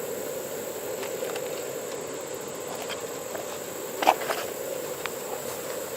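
A 3D-printed PLA hammer tapping a roofing nail into wood: a few faint ticks, then a sharper knock about four seconds in with a second one right after. A steady buzz runs underneath.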